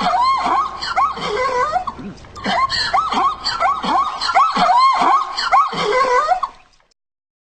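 Quick, high-pitched chattering voice-like calls with swooping pitch, laugh-like, that stop abruptly near the end.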